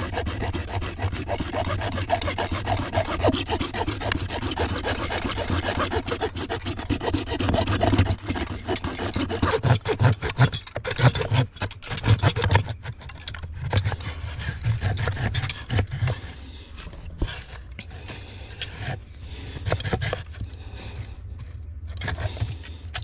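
A small hand saw cutting through a white PVC pool pipe, with rapid back-and-forth strokes rasping through the plastic. About halfway through, the strokes thin out and come more irregularly as the cut nears completion.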